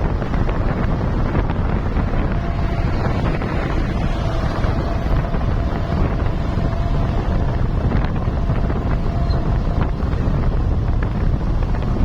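Wind buffeting the microphone: a steady low rumble, with a faint thin tone in the middle and a few light clicks.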